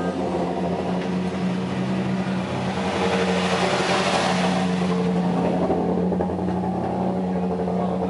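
Peugeot 106 Group A rally car's engine idling steadily, heard from inside the stripped cabin. A rushing noise swells and fades about halfway through.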